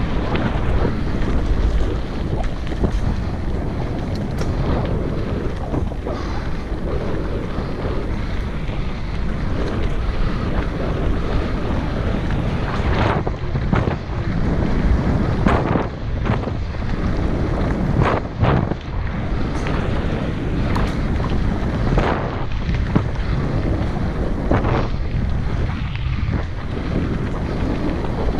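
Wind buffeting an action-camera microphone on a moving mountain bike, over the rumble of tyres rolling on a dirt trail, with scattered knocks and clatters as the bike hits bumps.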